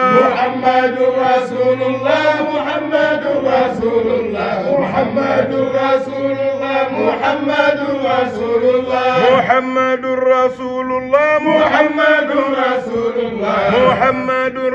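Voices chanting zikr, a Sufi devotional chant, in a sustained melodic line that carries on without pause.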